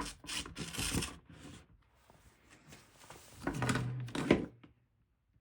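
Plastic parts of a Roomba i7's motor assembly and its cable being handled and pulled free: bursts of rustling and scraping with clicks, a sharp click about four seconds in.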